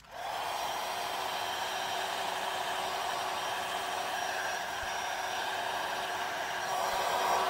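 Heat gun switched on and blowing steadily, a constant rush of air with its fan's hum, aimed at the air vent housing in a plastic dash facia to soften the glue holding the vent in.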